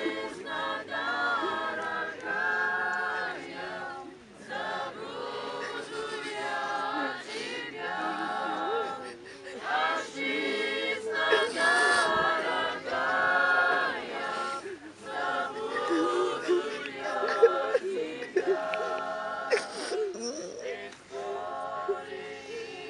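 A group of mourners singing a hymn together, unaccompanied, in phrases of held notes.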